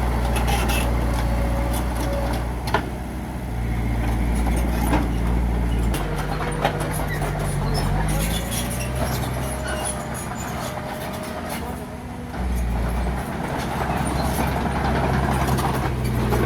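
Bulldozer's heavy diesel engine running. The engine note shifts with load about six seconds in and again a little after twelve seconds, with scattered sharp clanks and clicks.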